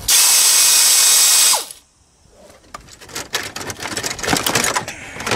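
Pneumatic air ratchet running with a loud hiss for about a second and a half, loosening a fastener on the air intake, then spinning down with a falling whine. After it, light knocks and rattles of the plastic intake tube being handled.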